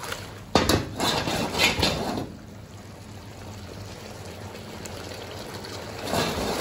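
Thickened braising sauce sloshing and sizzling in a hot iron wok as the wok is tossed to coat the pork in freshly splashed starch slurry, a loud burst starting about half a second in and lasting under two seconds. Then the sauce simmers steadily and more quietly, with another burst of sloshing near the end.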